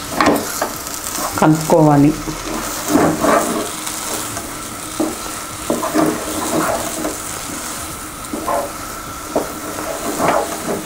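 Wooden spatula stirring thick, cooked semolina (rava kesari) in a non-stick pan, with irregular scraping strokes every second or two over a steady soft sizzle from the pan on the heat.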